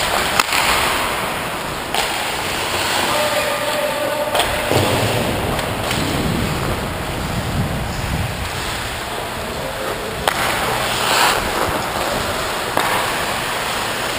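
Ice hockey skate blades scraping and carving the ice, with wind rushing over the microphone of a camera worn by the moving skater and a few sharp clicks.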